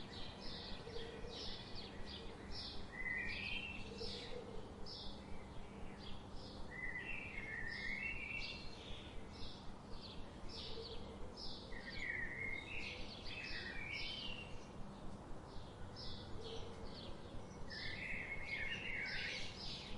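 Birds chirping and singing over a steady background hiss: a quick run of short, high chirps, several a second, with a lower warbling phrase every few seconds.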